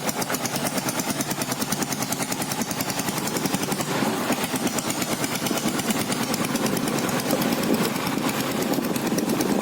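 Royal Enfield Taurus diesel motorcycle's single-cylinder Lombardini diesel engine running steadily, with an even, rapid train of knocking firing pulses.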